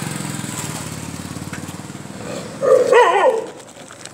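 A dog gives one short, wavering bark about three seconds in, over a low engine hum that fades out during the first two seconds.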